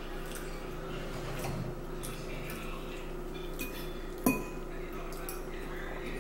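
Metal forks scraping and clinking against ceramic bowls during a meal, with one sharper knock about four seconds in.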